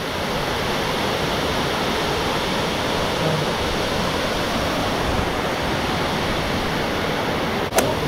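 Waterfall pouring into its plunge pool: a steady, loud rush of falling water. A single sharp click sounds near the end.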